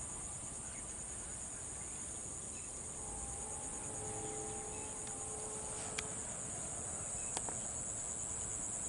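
Insects chirring steadily at a high pitch across a quiet field, with a faint held tone for a couple of seconds in the middle and two faint clicks near the end.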